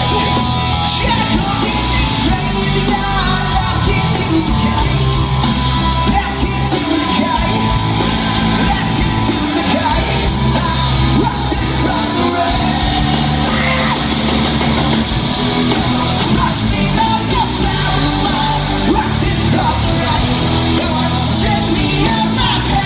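Loud rock music with yelled vocals.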